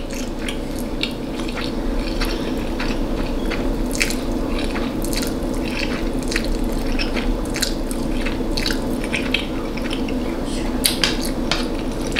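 Close-up wet chewing and mouth sounds of a person eating noodles and steak, with many small smacks and clicks, over a steady low hum.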